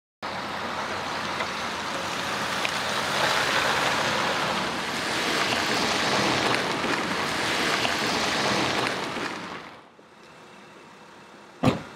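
Mercedes-Benz ambulance van driving, a steady rush of engine and road noise with no siren, which cuts off a little before ten seconds. A single sharp knock follows near the end.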